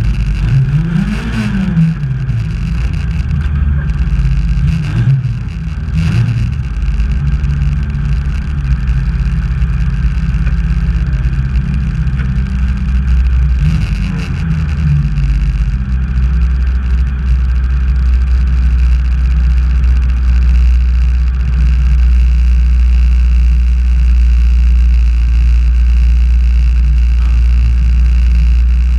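Autocross race car's engine heard from inside the stripped cockpit, revving up and down with a couple of sharp knocks in the first half. From about halfway it settles to a steady low run, close to idle, as the car slows and sits alongside another car.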